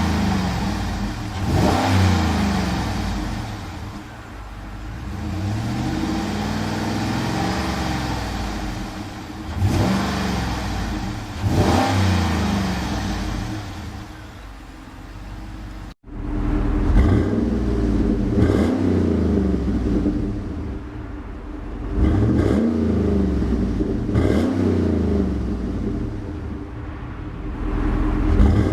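2012 GMC Yukon Denali's 6.2-litre V8 being revved from idle in quick blips, each one rising sharply and falling back, with a slower, longer rev early on. The sound breaks off abruptly about halfway, then the blips start again.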